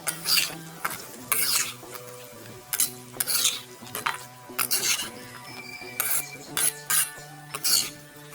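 A metal cooking utensil scraping and stirring in a pan, about ten short irregular strokes, over background music.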